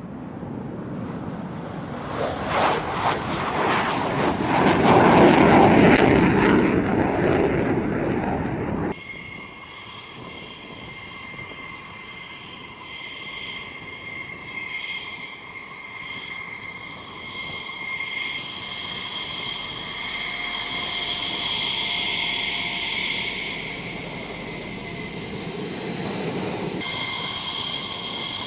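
Twin-engine F-15E Strike Eagle jet thundering past at takeoff power with a crackling edge, loudest about five seconds in. After a sudden cut about nine seconds in, a single-engine F-16C fighter's jet engine whines steadily with several high tones, growing louder in the second half.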